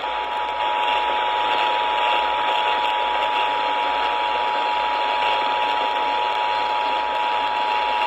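Emergency Alert System two-tone attention signal, the 853 and 960 Hz tones sounding together as one steady chord for about eight seconds, over a constant hiss of radio static.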